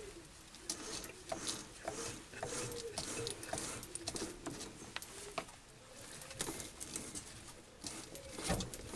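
Quarter-inch BSP tap turned by hand into a drilled hole in an acetal block, cutting the thread with faint short squeaks and scattered clicks.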